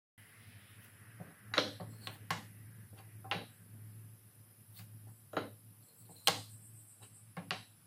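Wooden blocks handled on a table saw's top and against its fence, giving about six sharp knocks at irregular intervals, with light pencil marking, over a low steady hum.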